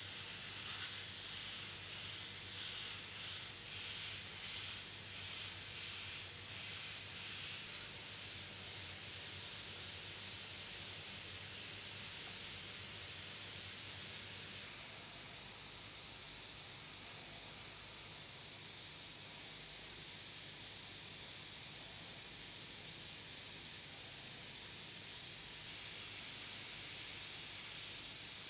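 Richpen 213 airbrush with a 0.3 mm nozzle hissing as it sprays paint. The hiss swells and fades in quick pulses for the first several seconds as the trigger is worked, then runs steady, dropping a little about halfway and rising again near the end.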